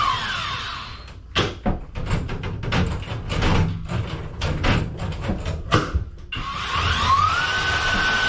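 Kobalt power drain auger's motor whine dropping in pitch as it is let off, then several seconds of knocking and clattering. About seven seconds in, the motor starts again and its whine rises back to a steady pitch.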